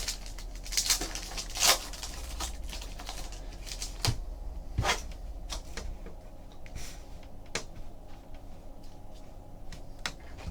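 A foil trading-card pack being ripped open and the cards handled: irregular crinkles and sharp clicks, over a faint steady hum.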